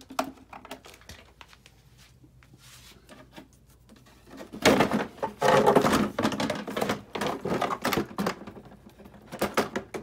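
Rattling and clattering of an electric scooter's parts as it is handled and taken apart: a few light clicks at first, then dense rattling clatter for several seconds from about halfway through.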